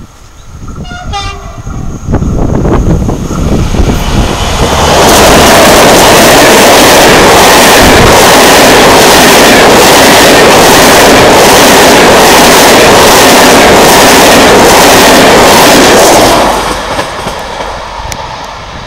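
Locomotive-hauled passenger train giving a short horn blast about a second in, then passing close by: a very loud rush of wheels and air with a rhythmic wheel clatter, fading away near the end.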